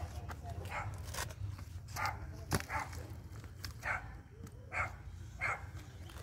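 A dog barking off and on, about eight short barks spread unevenly, with one sharp click about two and a half seconds in over a steady low rumble.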